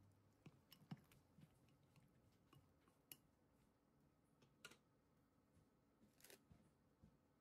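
Near silence with sparse faint clicks and taps from wooden chopsticks against a glass mixing bowl of raw chicken pieces, and one brief rustle a little before the end.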